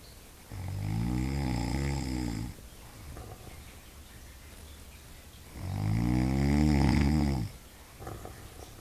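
A sleeping animal snoring: two long, pitched snores of about two seconds each, the first about half a second in and the second about five and a half seconds in, with quieter pauses between them.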